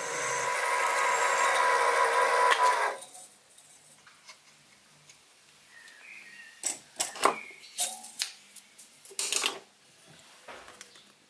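Sieg SX2P mini mill drilling a 6 mm hole in a metal plate with a twist drill: a steady whine with hiss for about three seconds, then it drops away to faint sound with a few scattered clicks and knocks.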